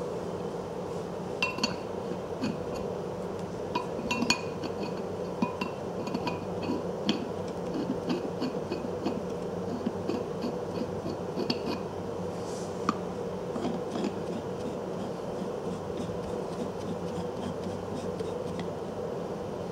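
Steel rebar coupler parts, the threaded bar, coupler body and sleeve, clinking and tapping against each other with short metallic rings as they are handled and fitted together. The clinks come scattered through the first two-thirds and then stop, over a steady background hum.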